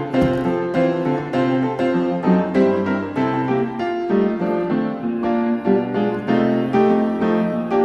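Background piano music, a light melody of quickly repeated notes.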